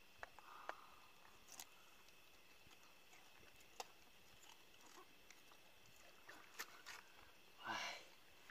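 Faint, scattered knocks and clicks as a speared fish is worked off a spear shaft and dropped into a wooden boat, with a short louder rush of sound near the end.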